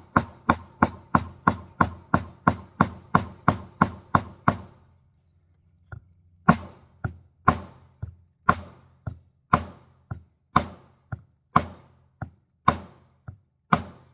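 Steady tapping as a steel sleeve is driven down onto the plastic stem of a grill knob. The taps come quickly, about three to four a second, for the first four seconds or so, then after a short pause slower, about one a second, with lighter taps in between.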